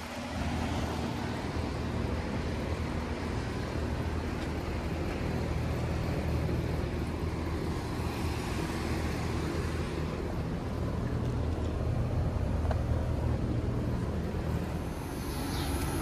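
Outdoor central air-conditioner condenser units (Carrier and Goodman) running: a steady low compressor hum under the even rush of the condenser fans, with rain falling.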